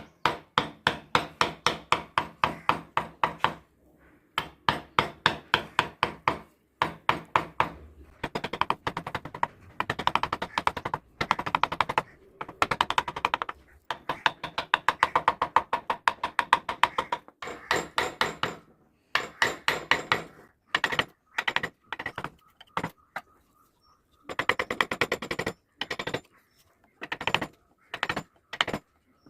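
Wood-carving chisel being tapped into wood with a mallet: quick, light strikes about six a second, in runs of a few seconds with short pauses between.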